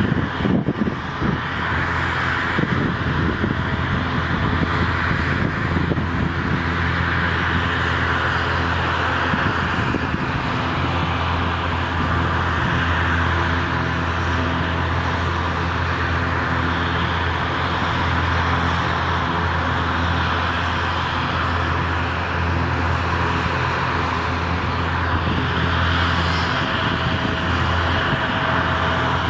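Airbus A321 airliner's jet engines on final approach, a steady drone with a low hum and several held tones.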